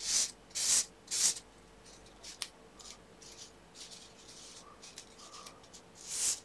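Paper towel wetted with isopropyl alcohol rubbed along the legs of an old IC, cleaning the pins. There are three quick swipes in the first second and a half and another near the end.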